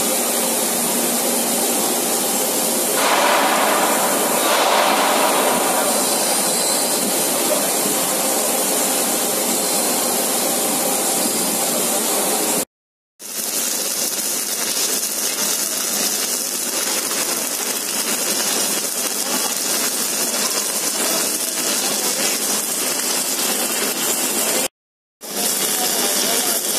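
Steady, loud mechanical hiss and rumble of a spiral-pipe submerged arc welding line running. The sound cuts to silence briefly twice, about halfway through and near the end.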